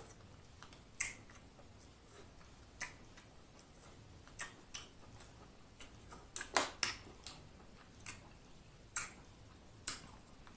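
Eating snow crab close to the microphone: a string of sharp clicks and smacks from crab shell and mouth as the meat is picked out and eaten, about ten in all, several bunched together about six and a half seconds in.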